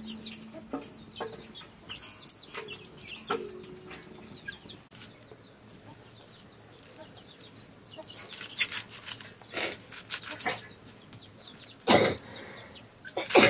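Chickens clucking and chirping throughout, with a few sharp cutting and rustling noises as leafy greens are sliced with a curved sickle blade over an aluminium pot, the loudest of them about twelve seconds in.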